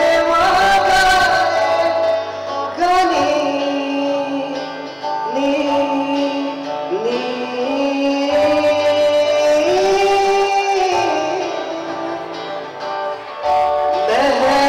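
Live music: a male voice singing long held notes that slide up and down, with acoustic guitar accompaniment and brief breaks between phrases.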